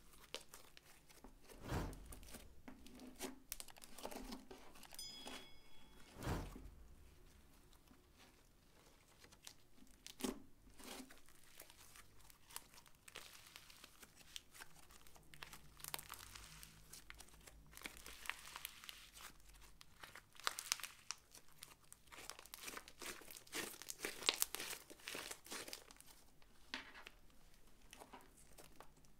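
Glossy green slime being squeezed, stretched and folded by hand: a continuous run of small sticky clicks and crackles, with a couple of soft thumps about two and six seconds in.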